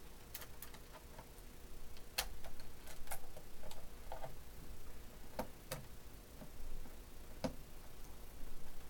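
Screwdriver driving small screws into the plastic landing gear of a DJI Phantom drone: light clicks and ticks at irregular intervals, the sharpest about two seconds in.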